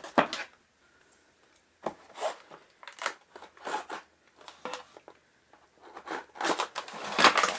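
A cardboard box set down with a knock, then its taped end slit with a blade and pried open: irregular scraping, cutting and tearing of cardboard and tape, louder near the end.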